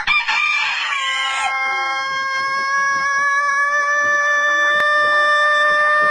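Rooster crowing one unusually long crow: a ragged, harsh opening of about a second and a half, then a single steady held note that carries on without a break.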